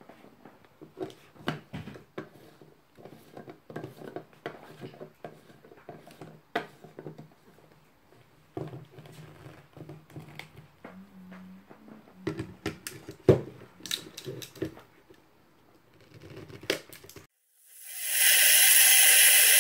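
Plastic clicks and knocks as a personal blender's blade cap is fitted onto the cup and the cup is set on the motor base. Near the end the blender motor starts and runs loud and steady, chopping grilled vegetables into a coarse purée.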